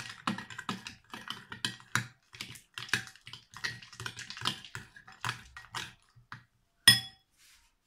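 A utensil stirring wet slime mixture in a glass bowl: quick, irregular clicks and scrapes against the glass, several a second. About seven seconds in there is one louder clink that rings briefly, and then the stirring stops.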